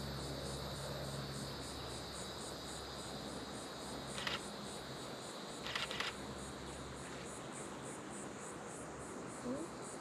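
Chorus of insects: a steady high drone, with a higher, even pulsing chirp about three times a second over it. Two short bursts of clicks stand out, about four and six seconds in.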